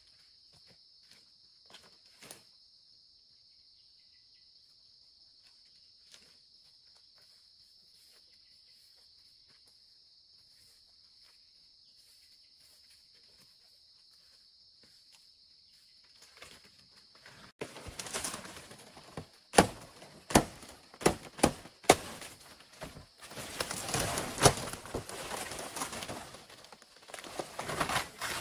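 A steady, high-pitched insect drone with a few faint ticks, which stops abruptly about two-thirds in. It is followed by a run of loud, sharp knocks, about half a dozen in a few seconds, then clattering and rustling of handwork.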